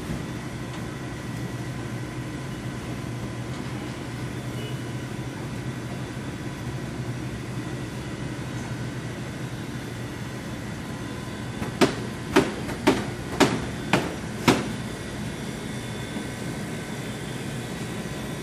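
Steady ventilation hum, with six sharp hammer blows about half a second apart a little past the middle.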